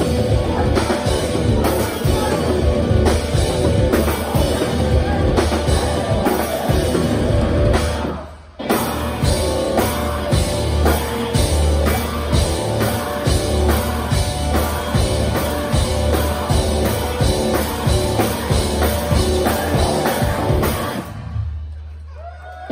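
Live rock band playing loud with drum kit, electric guitar and bass, stopping dead for a moment about eight seconds in and then crashing back in. Near the end the drums cut out, leaving a held bass note and ringing guitar.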